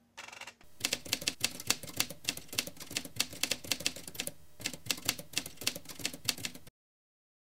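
Typewriter keys clacking in a fast, uneven run of strikes, used as a sound effect for text being typed out. There is a short pause a little past halfway, and the clacking cuts off abruptly near the end.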